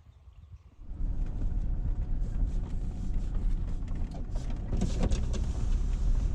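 Wind buffeting the microphone: a loud, low, fluctuating rumble that comes in suddenly about a second in.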